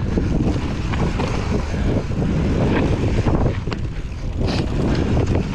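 Wind rushing over the camera microphone and knobby tyres rolling over dirt as an Orange P7 chromoly steel hardtail mountain bike descends singletrack at speed. Short knocks and rattles come through as the bike hits bumps.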